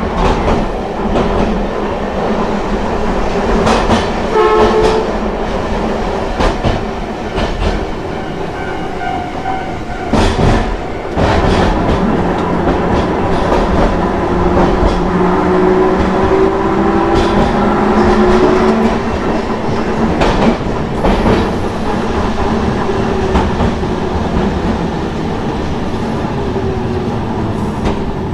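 Hankai Tramway Mo 351-class tram running, its nose-suspended traction motors giving a whine that rises and falls in pitch. Steel wheels clack now and then over rail joints.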